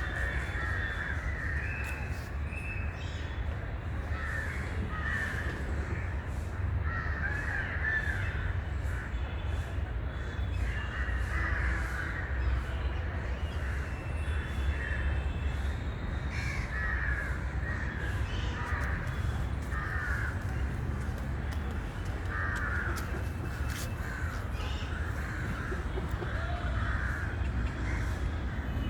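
Birds calling over and over, many short overlapping calls throughout, over a steady low rumble.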